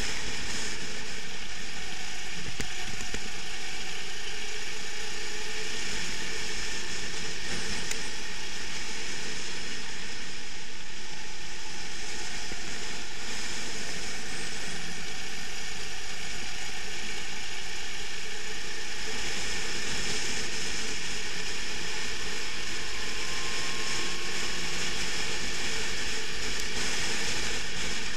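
Rental kart's engine running at racing speed, heard from a camera mounted on the kart itself, a steady mechanical drone whose pitch drifts slowly up and down through the corners.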